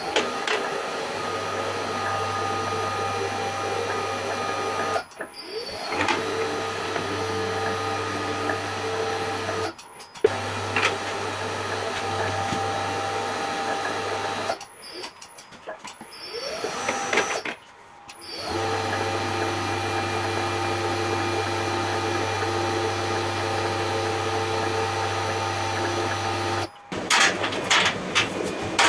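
Electric motor and gearbox of a cold-forging scroll-bending machine running steadily with a low hum and a few steady whining tones, winding a twisted steel bar into a scroll. The sound drops out briefly several times. Near the end come a few sharp metal clicks and clanks.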